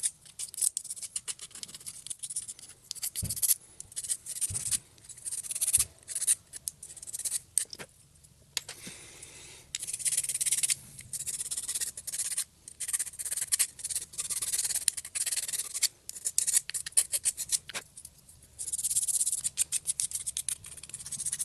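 A small file rasping over plastic edges in runs of quick back-and-forth strokes, with short pauses between runs, as the edges are deburred.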